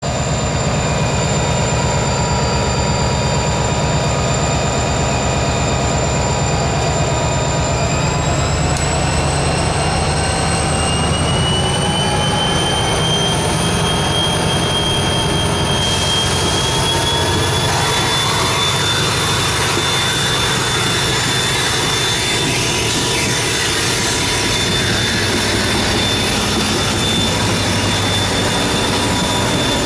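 Diesel-electric freight locomotives led by a CSX EMD SD40-2 accelerating under load. The two-stroke diesel engines run hard, and a high turbocharger whine steps up in pitch about eight seconds in and again around sixteen seconds as the train gathers speed.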